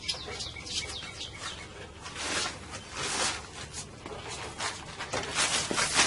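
Small birds chirping: many quick, high notes that slide downward, repeating again and again.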